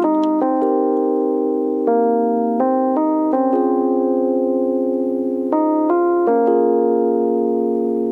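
Background music: keyboard chords held and changing every second or so, each fading slightly after it is struck.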